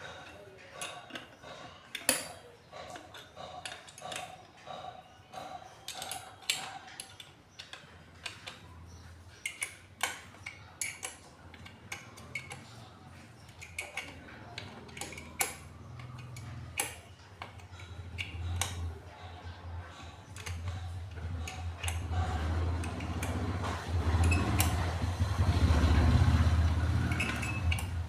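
Metal parts and tools clinking and knocking in irregular sharp clicks while a water pump is taken apart or reassembled. A low hum comes in about a third of the way through and builds, loudest near the end.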